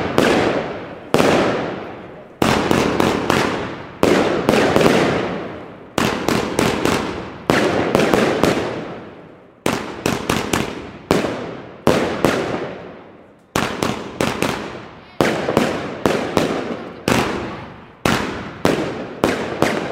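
Consumer fireworks battery firing aerial bursts overhead: sharp bangs in quick clusters of two to four, every second or two, each trailing off in a fading crackle.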